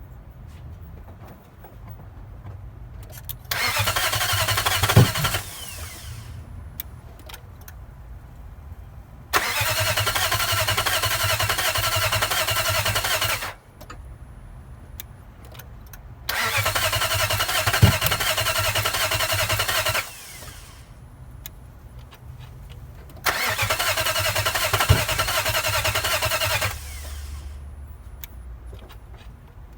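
Swapped-in Nissan VK45DE V8 cranking on the starter four times, each try lasting three to four seconds, turning over without catching. A single sharp pop in three of the tries is a light backfire; the engine turns over but won't start.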